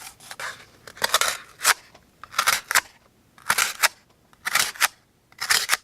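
A sharp folding knife blade slicing through cardboard in repeated quick strokes, about one a second, each a short rasping cut that ends abruptly.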